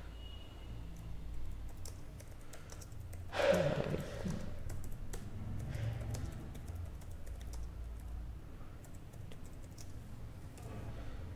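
Typing on a computer keyboard, keys clicking irregularly over a low steady hum, with one brief louder noise about three and a half seconds in.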